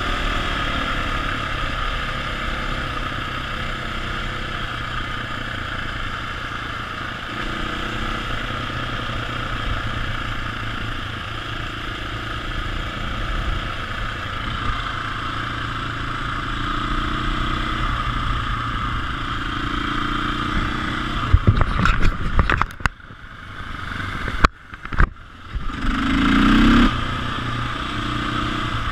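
KTM EXC enduro motorcycle engine running at riding speed, heard from a camera on the bike with wind rushing over the microphone, the revs rising and falling with the throttle. About three-quarters of the way through comes a run of loud knocks and short drop-outs, then a brief rev rising in pitch.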